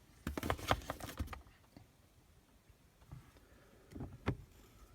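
Small clicks and knocks from the shift knobs being handled: a quick flurry of taps in the first second, then two more knocks near the end.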